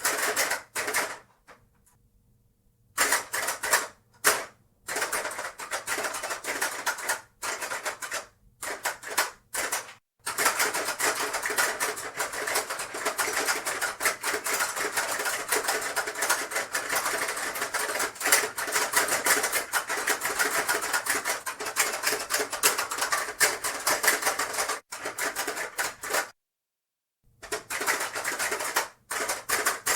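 Hungry Hungry Hippos game being played: rapid plastic clacking of the hippos' levers and snapping jaws with marbles rattling. It comes in short spurts with pauses for the first ten seconds or so, then runs as a fast continuous clatter, stopping for about a second near the end before starting again.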